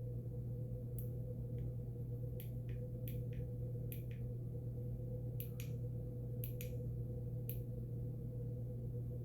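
Light, sharp clicks from a flashlight being handled and its buttons pressed, about a dozen scattered irregularly, over a steady low hum.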